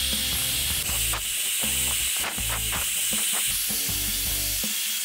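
Hand-held hair dryer running, a steady hiss of blowing air, over background music.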